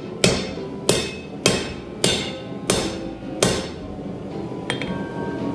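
Hand hammer striking metal on an anvil during forging: six ringing blows about 0.6 s apart, stopping about three and a half seconds in. Background music plays underneath.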